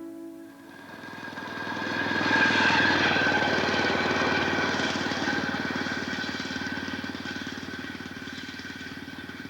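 A small engine running with a fast, even putter. It grows louder to its loudest about two and a half seconds in, then slowly fades away. Music cuts out just before it.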